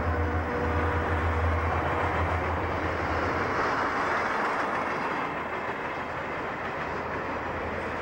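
Conrail diesel locomotives passing with a deep engine drone that fades over the first few seconds, giving way to the steady rumble of freight cars rolling by on the rails.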